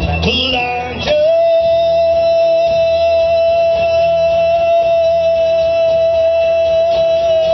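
A band playing music with guitar; about a second in, one high note starts and is held steadily for about six seconds.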